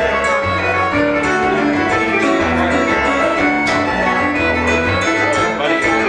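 Fiddle playing a quick run of notes in a live tune, over a chorded accompaniment with a bass line.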